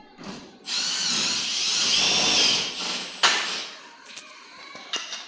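Handheld power drill running at the ceiling for about two seconds with a high whine, followed by a single sharp knock.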